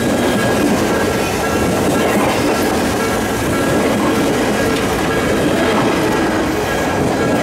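Odakyu Electric Railway commuter train passing close by at speed, a steady loud rumble of wheels and running gear on the rails.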